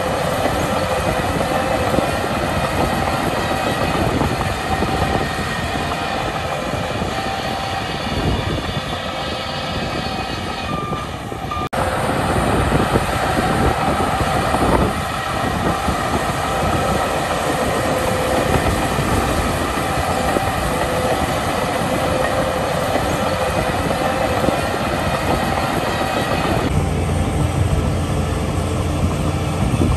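Shantui crawler bulldozer running under load, its steel tracks clattering with steady whining tones over the engine noise. The sound breaks off abruptly about twelve seconds in and resumes. Near the end it gives way to a deeper, steadier engine rumble.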